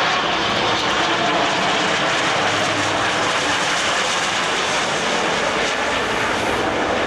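Twin-turboprop airliner passing low overhead with its landing gear down; its engines and propellers make a steady drone.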